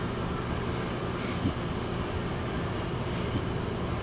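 Steady low hum of an idling vehicle engine, with nothing else standing out.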